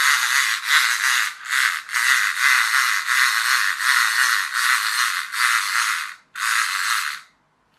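Plastic clockwork wind-up toy crab walking on its own: its spring-driven gear train and legs make a rattling whir that pulses in a steady rhythm. It breaks off briefly about six seconds in, runs again, then stops shortly before the end.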